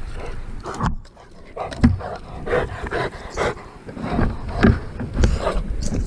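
Rottweiler panting close by, in irregular breathy huffs.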